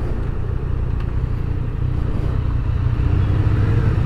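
Motorcycle engine running steadily at low speed with an even, low hum.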